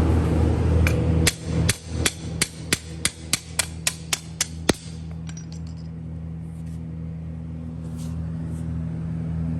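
About a dozen quick metal hammer strikes, roughly three a second, stopping a little before halfway: a chipping hammer knocking slag off a fresh stick weld. Under them runs the steady electrical hum of the Miller Syncrowave 350 welding power source.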